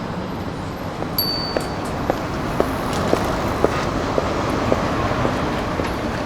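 City street ambience: a steady wash of traffic noise with regular short ticks about two a second, and a brief high tone about a second in.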